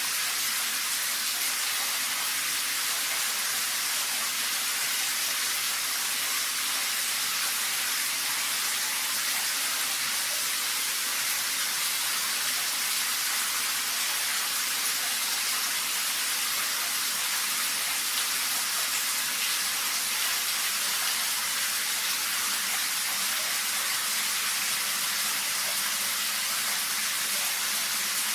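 Shower running: water spraying in a steady, even hiss with no breaks.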